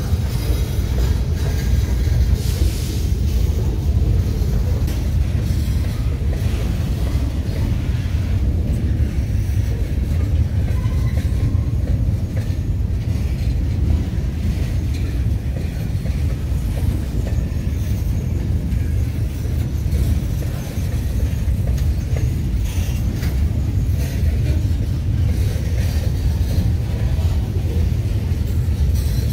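Freight train of gondola cars rolling past: a steady low rumble of steel wheels on the rails, with faint scattered clicks.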